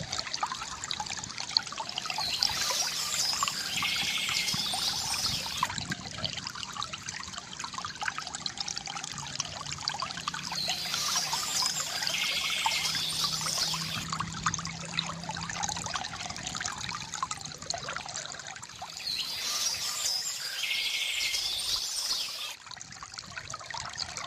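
Stream water trickling and splashing steadily, with a small bird singing the same short phrase three times, about every eight or nine seconds.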